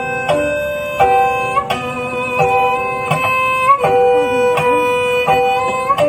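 Sundanese tarawangsa music: a bowed tarawangsa fiddle holds a steady tone while a plucked string instrument repeats a short figure, a new note about every 0.7 s.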